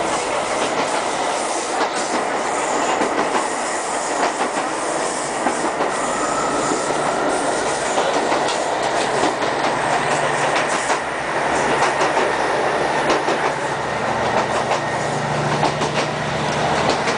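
ScotRail Class 156 Sprinter diesel multiple unit running at speed, heard from inside the carriage: steady wheel-and-rail noise with frequent short clicks from the wheels crossing rail joints. A low engine drone comes in about halfway through and grows stronger near the end.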